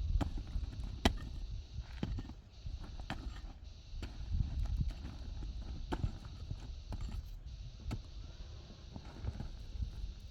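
Scattered irregular knocks and clicks over a low rumble.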